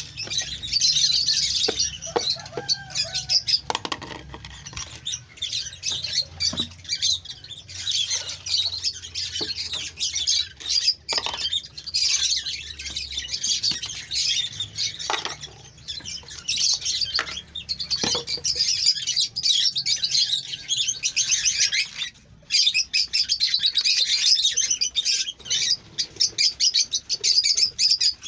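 Pet parrots chirping and chattering: a dense stream of rapid high chirps in bouts of a few seconds each, with a few short, sharper calls scattered through.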